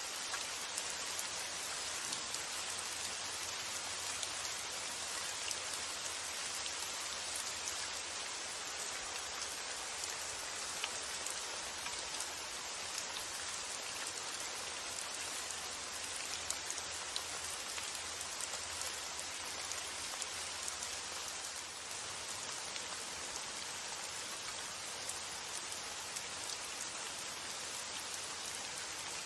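Steady rain falling, with many small drop impacts standing out as scattered light ticks.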